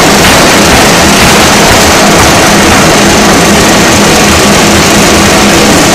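Pneumatic forging hammer at work, its ram hammering a red-hot steel bar into steel balls, in a loud, steady, dense din with a low hum underneath.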